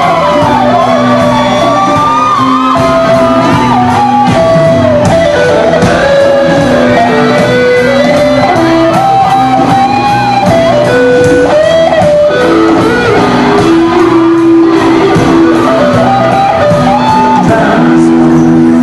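Live rock band playing loudly in a large room: an electric guitar carries a melody of sliding, held notes over bass and drums, with no words sung.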